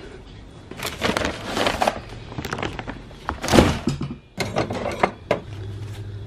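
Handling noise as garden supplies, including a bag of plant food, are loaded into a plastic garden cart: irregular knocks, thuds and rustling. The loudest thud comes about three and a half seconds in.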